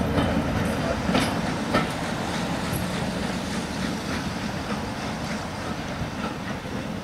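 Goods train's wagons and brake van rolling away over the rails, the wheels clicking sharply over rail joints a few times in the first two seconds, the rumble fading as the train draws away.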